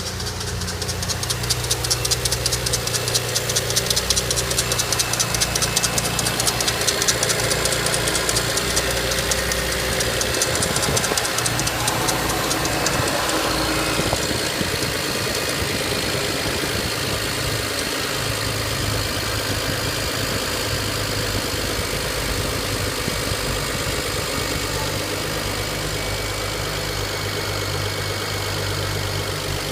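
BMW N54 twin-turbo inline-six in a 335i idling from cold, with a fast ticking and rattling over the running that is strongest for the first dozen seconds and then settles into a steadier idle. It is the cold-start knocking and ticking noise whose cause the owner is trying to find.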